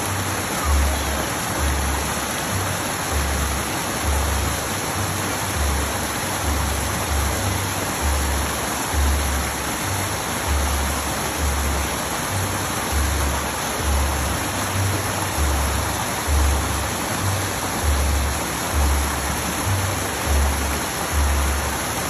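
Water cascading over a rock ledge into a pool, a steady rushing splash, under background music with a steady low bass beat.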